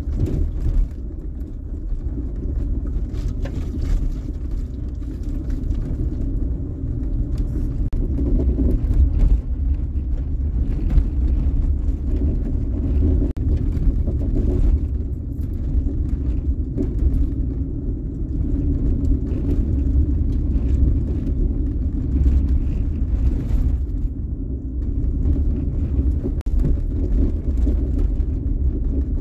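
Vehicle driving on a rutted dirt road, heard from inside the cab: a steady low rumble of engine and tyres, with occasional light knocks and rattles.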